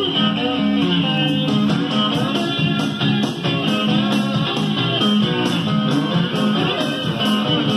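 Blues band recording with electric guitar and bass guitar, played back from a cassette tape through hi-fi speakers.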